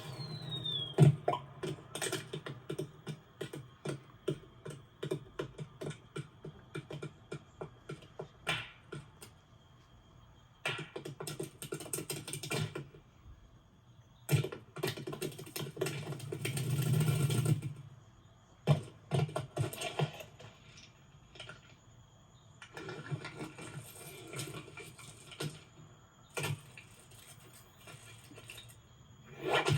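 Animated-film sound effects: quick irregular runs of clicking and ticking, broken by a few louder rushing swells lasting a second or more.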